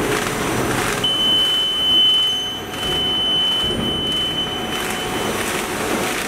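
Side-sealing bag making machine running, giving a steady dense mechanical noise. A steady high-pitched tone starts about a second in and stops about four seconds later.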